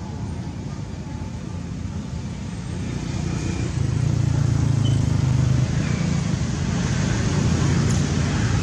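Low engine rumble of a motor vehicle out of sight, growing louder about three seconds in and then holding steady.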